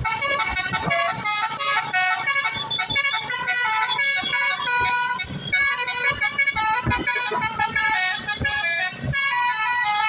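Bus 'basuri' telolet horn, a multi-tone air horn, playing a fast melody of quick stepped notes without a break.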